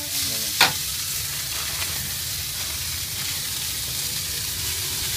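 Bean sprouts and greens sizzling steadily in oil on a large, shallow steel frying pan as they are stir-fried with a metal ladle. The ladle clanks sharply against the pan once, about half a second in.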